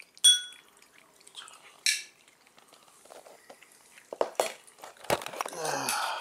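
Ceramic tableware clinking: a sharp, ringing clink about a quarter second in, the loudest sound, and a second ringing knock near two seconds, with small knocks and handling noise after them as cat food is dished out.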